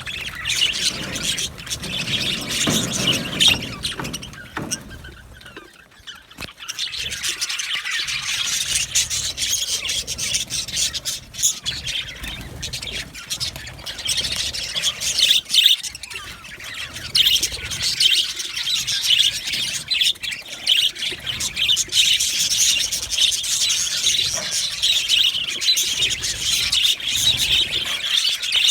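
A flock of budgerigars chirping and chattering in a dense, continuous chatter. It thins out briefly about six seconds in.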